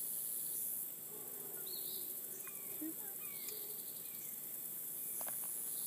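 Steady, high-pitched insect trilling, with a few short, falling bird chirps over it.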